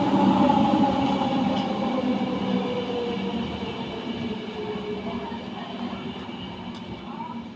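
A train running along the tracks, loudest at first and then fading away, with a whine that slowly falls in pitch.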